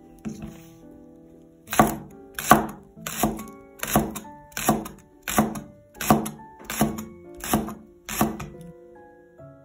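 A cleaver slicing a green onion into thin rings on a bamboo cutting board. About ten evenly spaced knocks of the blade on the wood, roughly every two-thirds of a second, over light background music.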